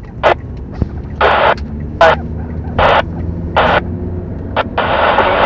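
Air-band VHF radio transmission, the pilot's voice reading back an ATC departure clearance in short, thin, band-limited bursts, over a steady low hum.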